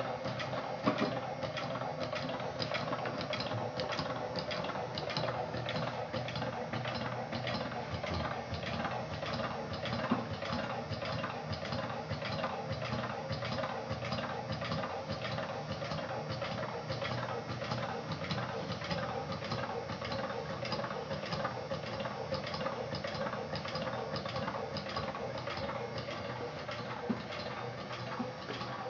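Homemade Stirling engine with a walking beam, Scotch yoke and ball bearings running steadily, its linkage giving off an even, rapid mechanical clicking.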